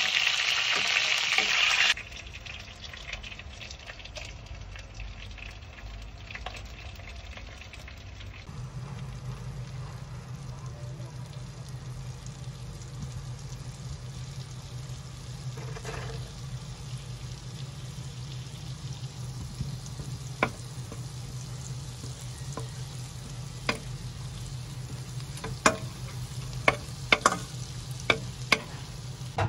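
Chicken drumsticks frying loudly in hot oil in a stainless steel pan for the first two seconds, then a much quieter sizzle as a block of butter melts in the hot pan. A steady low hum joins about eight seconds in, and scattered sharp pops of spitting fat come more often near the end.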